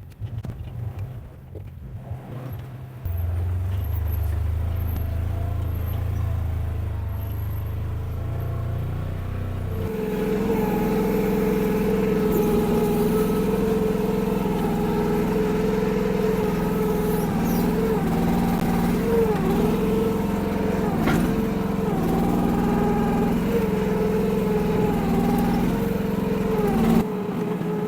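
Mini excavator's 14 hp Briggs & Stratton gas engine running. It hums low at first, then from about ten seconds in runs at a higher, steady pitch that sags and recovers now and then as the hydraulics take load.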